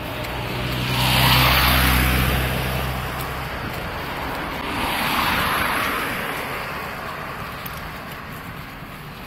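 Two cars passing by on the street: the first, about a second in, swells and fades with a low engine hum, and a second one passes a few seconds later, over steady traffic noise.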